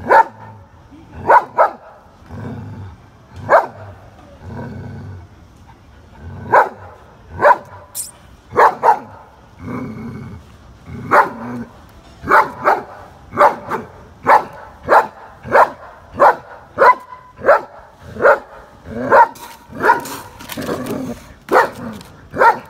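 German shepherd barking in short, sharp barks. They are spaced out at first, with low growling between some of them, then come in a steady run about every half second from roughly halfway.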